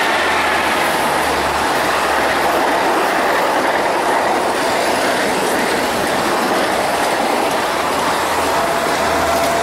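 Talgo coaches of the 'Strizh' express train passing close by at speed: a loud, steady rush of wheels on rail, with a faint thin squeal near the end.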